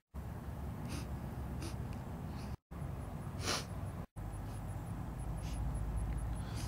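A person sniffing the air repeatedly: a series of short noisy sniffs, the loudest about halfway through, over wind rumbling on the microphone.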